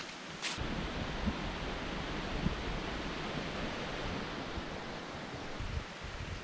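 Wind buffeting the microphone in gusts, over a steady rushing hiss of outdoor air.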